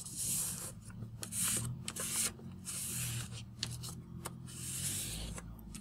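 A sheet of origami paper being rubbed and creased flat under the fingertips as a squash fold is pressed down. It comes as a series of short rustling strokes with a few light clicks of the paper.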